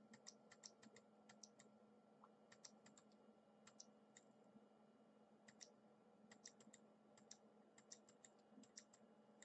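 Faint clicking on a computer keyboard and mouse: short light clicks in quick clusters of two to five, every second or so, over a faint steady hum.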